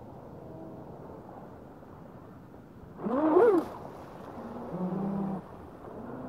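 A voice giving a short call about three seconds in that rises and then falls in pitch, followed by a lower, steadier held call a couple of seconds later.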